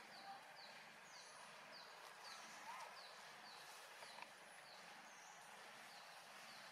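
Faint outdoor ambience: a steady hiss with a short, high, falling chirp repeated about twice a second.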